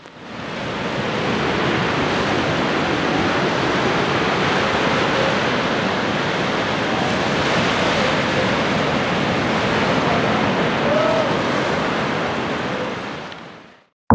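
Ocean surf: waves washing onto a shore in a steady rushing hiss that fades in over the first second or two and fades out near the end.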